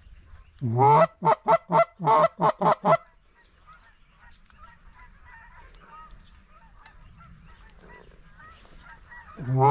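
Goose honking: a loud run of about eight quick honks, faint distant goose chatter, then one more loud honk near the end.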